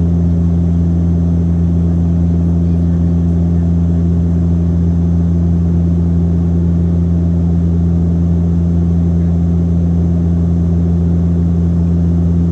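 Passenger plane's engines droning inside the cabin: a loud, steady low hum with an even pitch.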